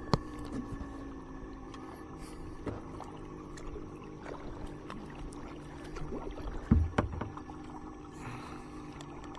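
Kayak paddling on a river: the paddle blades dip and splash in the water with water washing along the hull, with scattered small clicks and a louder knock about seven seconds in.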